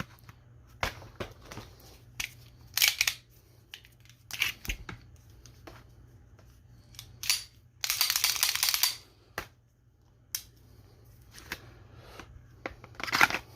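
Hands handling a plastic toy blaster: scattered clicks, knocks and rattles, with a louder scrape or rip lasting about a second around eight seconds in.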